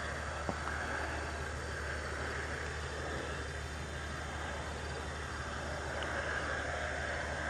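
Steady low drone of a vehicle engine running, with an even hiss over it.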